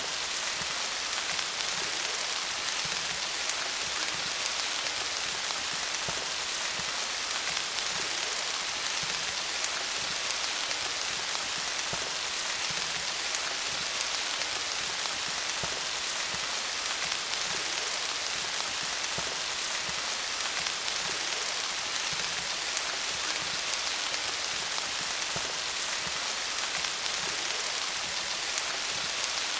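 Steady rain pattering on leaves, a dense even hiss of many small drop hits.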